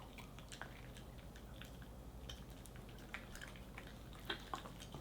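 A small shiba inu chewing a soft potato-mochi treat: irregular small wet clicks and smacks over a low steady hum.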